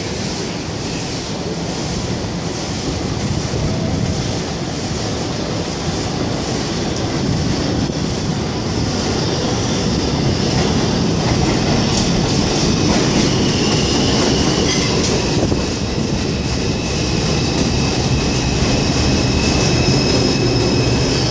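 R142 New York City subway train arriving on an elevated steel structure and pulling into the station, its rumble building steadily as it nears. Clacks come over the rail joints, and a high squeal sets in over the second half as it slows alongside the platform.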